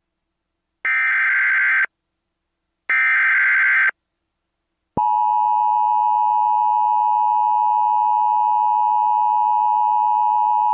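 Emergency Alert System SAME header: the last two of three one-second data bursts, each a harsh high warble, a second apart. About five seconds in, the steady two-tone EAS attention signal starts and holds, announcing the tornado warning that follows.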